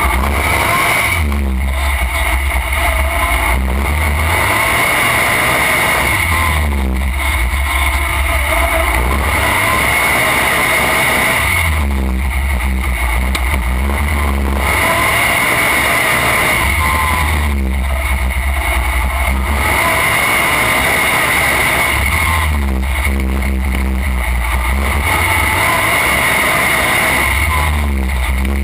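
Racing lawn tractor engine running hard at close range, its sound rising and falling every five seconds or so as it speeds up and eases off around the course.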